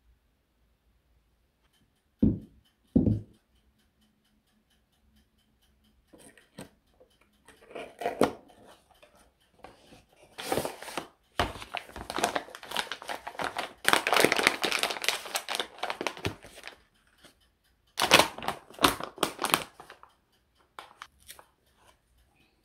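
Two short low thuds, about two and three seconds in, then a paper tea box and a tea pouch rustling and crinkling as they are opened and handled. The packaging noise is busiest in the middle and comes again in a short flurry near the end.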